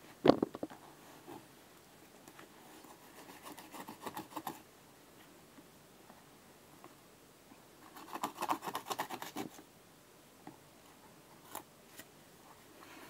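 A knife sawing and tearing through the synthetic upper of an Adidas Predator football boot, in two bursts of quick rasping cutting strokes, a few seconds in and again about eight seconds in. A single sharp snap just after the start is the loudest sound.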